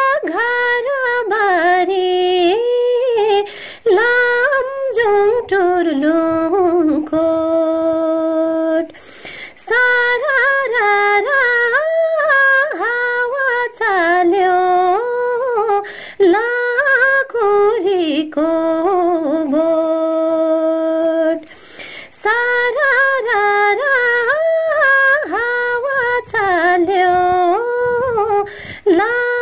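A woman singing a Nepali folk song unaccompanied, with ornamented, wavering lines and long held notes, breaking twice for breath.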